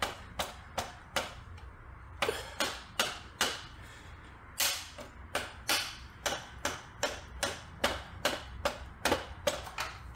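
Soft-faced mallet tapping the rear wheel of a motorcycle forward on its loosened axle, about two to three sharp knocks a second in several runs with short pauses between.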